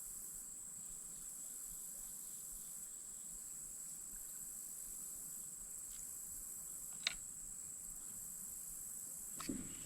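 Steady, high-pitched chorus of insects in one even tone, with a single sharp click about seven seconds in and a soft knock near the end.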